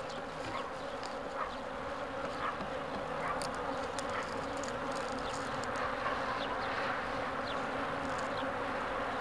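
A swarm of honeybees buzzing steadily around their hives: a dense, even hum, with faint short high chirps scattered over it.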